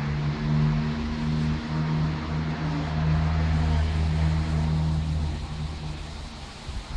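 A motor vehicle's engine running with a steady low hum, fading out about six seconds in.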